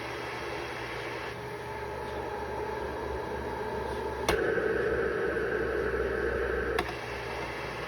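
Cough assist machine (mechanical insufflation-exsufflation device) running through a breathing cycle: a steady blower hum with airflow slowly building, then a click about four seconds in as it switches to a louder rush of air for about two and a half seconds, ending with another click and a return to the steady hum. The louder stretch fits the exhale (suction) phase that follows the inhale.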